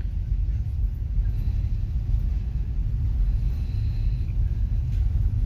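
Ferry's engines and propellers rumbling steadily as the vessel manoeuvres into its berth, heard from inside the ship, with a faint high whine in the middle.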